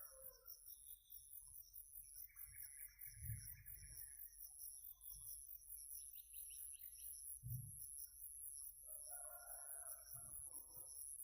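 Faint outdoor ambience of birds and insects: a steady, pulsing high-pitched insect trill throughout, with birds calling several times, near the start, around two to four seconds in, and again near the end. A couple of soft low thumps are heard, the strongest about seven and a half seconds in.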